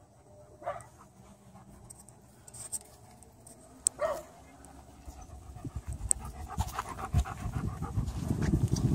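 Chocolate Labrador retriever panting with its mouth open. The panting comes in about halfway through as quick, even breaths and grows louder as the dog comes up close.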